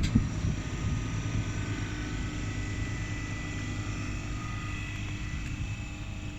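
Steady low mechanical hum with a couple of faint, steady high tones above it, easing off slightly toward the end.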